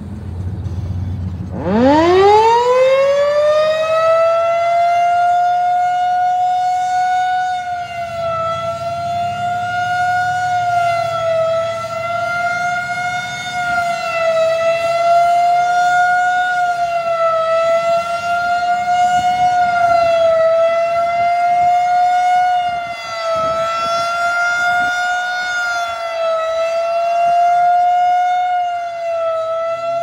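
Rotating outdoor warning siren being tested: it winds up quickly about two seconds in, then holds one steady tone, swelling and fading as the horn turns.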